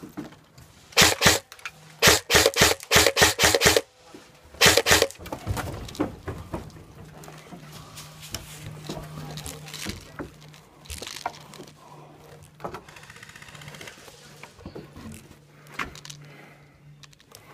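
Airsoft rifle shots in quick strings: two about a second in, a rapid run of about eight over the next two seconds, then a few more near the five-second mark, laying down covering fire.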